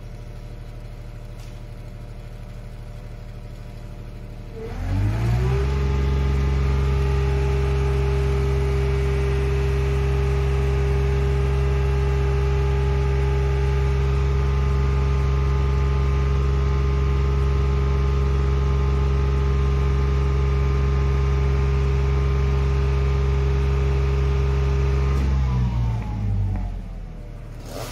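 Aerial lift truck's engine idling, then speeding up about five seconds in and holding a steady raised speed while the hydraulic boom moves the basket. Near the end it drops back to idle.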